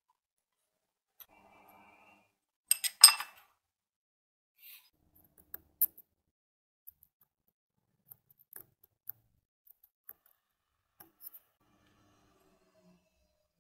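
Small metal clicks and scrapes of a screwdriver and a pointed steel tool working at the rusty metal housing of an old tire inflator. A louder cluster of sharp, ringing clinks comes about three seconds in, then scattered light ticks.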